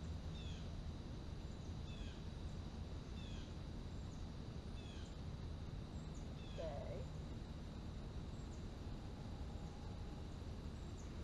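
A small bird calling, repeating a short falling chirp over and over, over a steady low background hum.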